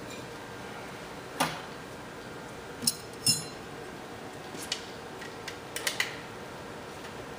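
Thin metal file-bar rails clinking as they are picked up and handled: a knock, then two ringing metallic clinks less than half a second apart, followed by a few lighter clicks.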